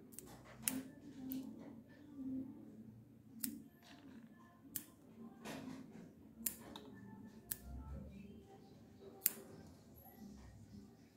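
Small scissors snipping off soft succulent bonsai shoots: a series of sharp, crisp snips at uneven intervals, about eight or nine in all.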